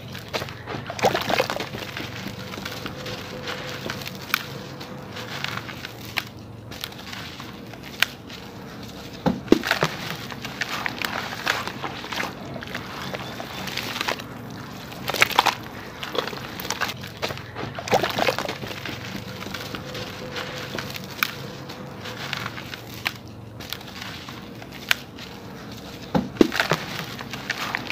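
Hands crumbling soaked sand-cement chunks in a bucket of water: continuous sloshing of muddy water with gritty crumbling, and sharper, louder splashes or cracks every few seconds.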